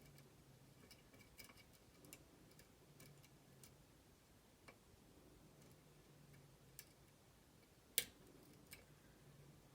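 Faint, irregular clicking of a lock pick tapping the pins of a steering-wheel lock cylinder held under heavy tension, with one sharper click about eight seconds in. The pins are tapered and need repeated taps to set.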